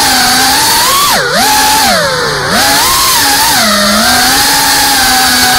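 GEPRC freestyle FPV quadcopter's brushless motors and props whining loudly, heard from the onboard camera. The pitch dips sharply and climbs back about three times as the throttle is chopped and punched.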